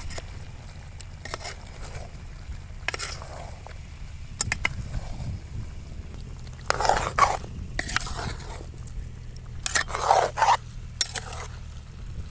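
Metal spoon scraping and clinking against a large steel bowl as raw chicken pieces and cut brinjal are mixed together. A few sharp clinks come first, then longer scraping strokes from about seven seconds in.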